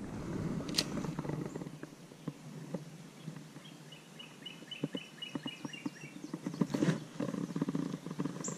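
Running stream water with scattered clicks and knocks from handling a spinning rod and reel. About four seconds in, a bird gives a quick run of about ten short, evenly spaced high notes.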